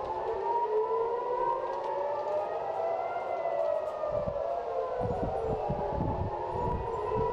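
Several civil-defense air-raid sirens wailing at once, their slow rising and falling tones overlapping out of step. This is the rocket-alert warning of an incoming missile.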